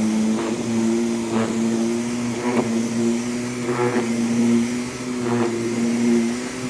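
Vacuum cleaner running steadily over a wool rug, its motor hum pitched steady, with a swishing stroke about every second as it is pushed and pulled across the pile to lift out dry soil.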